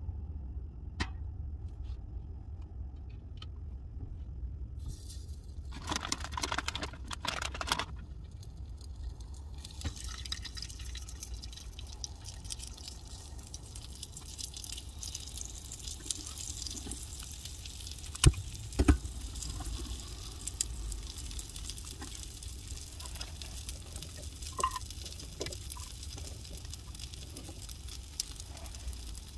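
A pot of water heating on a gas canister stove, with a steady hiss from about ten seconds in and faint ticks and drips. Rustling comes about six to eight seconds in, and two sharp knocks of handling a little past halfway.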